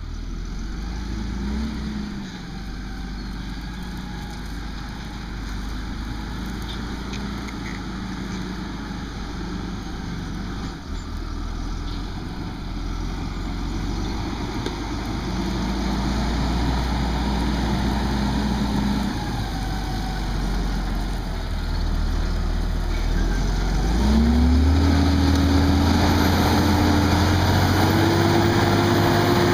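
Fendt 936 tractor engine running steadily while pulling a seven-furrow plough. About 24 s in, the engine pitch climbs and it gets louder, then holds at the higher revs.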